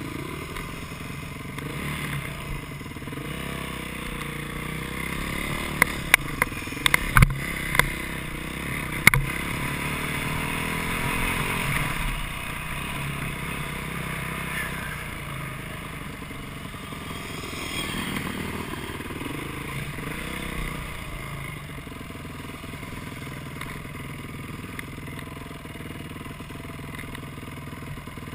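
Dirt bike engines running and revving, their pitch rising and falling as the bikes ride along the trail. A few sharp clicks come between about six and nine seconds in.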